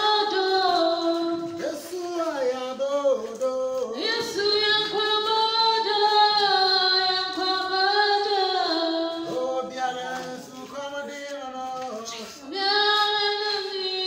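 A woman singing in a high voice, holding long notes with a wavering pitch in phrases broken by short pauses; a new loud held note starts near the end.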